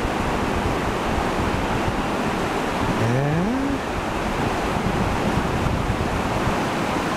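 Steady rushing noise of the gorge's river, mixed with wind on the microphone. About three seconds in, a man makes one brief, rising vocal sound.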